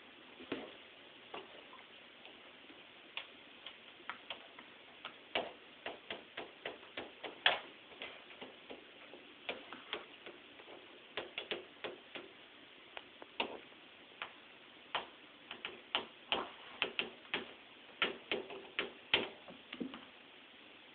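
Irregular light taps and clicks on a door, coming in uneven clusters, some close together and some a second or more apart.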